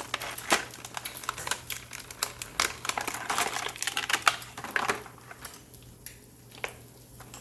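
Plastic packaging of a posable figure being handled and opened, a quick run of clicks and crinkles that thins out to a few faint ticks about five seconds in.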